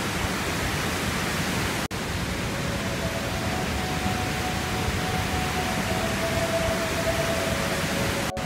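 Steady rushing water, an even hiss, broken by a momentary gap about two seconds in.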